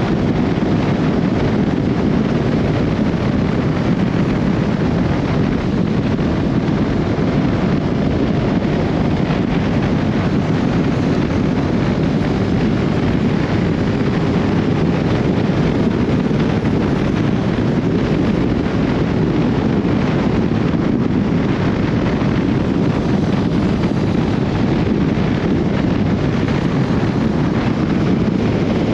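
Steady wind rushing over the microphone, with the inline-four engine of a Honda CB1300SB motorcycle running underneath as it rides along.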